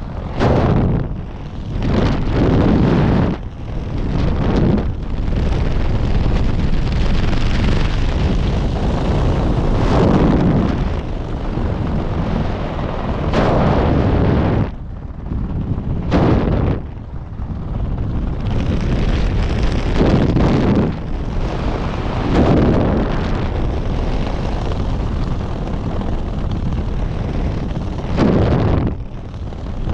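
Wind rushing over the camera's microphone during flight under an open parachute canopy: a loud, rumbling rush that swells and drops every few seconds.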